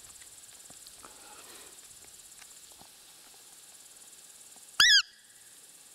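Faint steady insect chirring, and about five seconds in one loud, short, high-pitched squeak that rises and falls: a hunter's roe deer call imitating a doe during the rut, blown to draw in a roe buck.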